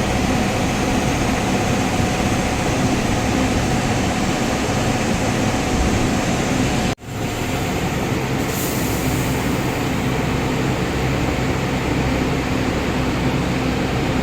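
A steady mechanical running noise, a low hum with a higher steady tone over it. It breaks off abruptly for an instant about halfway through, then resumes.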